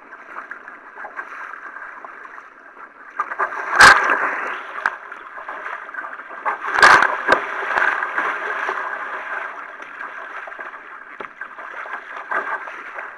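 Water rushing and sloshing around a sea kayak as it is paddled through choppy water, with two loud splashes about four and seven seconds in and smaller splashes later.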